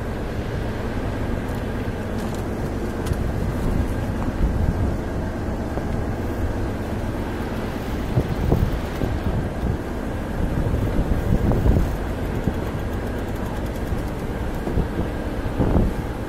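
Wind rumbling on the microphone over a steady engine hum, swelling a little louder now and then.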